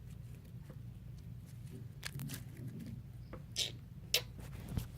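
Sticky homemade face-mask slime being handled: a few short, sharp sticky clicks and smacks in the second half, over a steady low hum.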